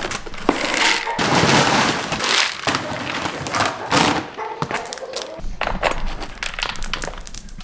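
Dry feed pellets and dog kibble poured from a plastic scoop into a feed bucket, rattling and clattering in several pours, with a dense patter of small hits in the later pour.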